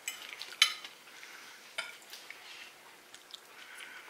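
Cutlery clinking and scraping on a dinner plate during a meal, with a few sharp clicks, the loudest about half a second in.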